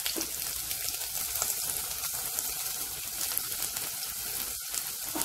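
Chopped garlic sizzling in hot oil in a kadai: a steady frying hiss with fine crackles.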